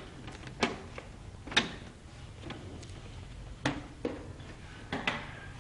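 The plastic casing of an Epson L200 printer being pried off by hand, its snap clips giving way in about six sharp clicks and snaps at uneven intervals.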